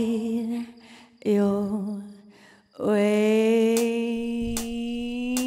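A woman's wordless vocalising: a few held notes, the last one long and steady, rising slightly at its end. A few soft clicks and low instrument sounds come in near the end.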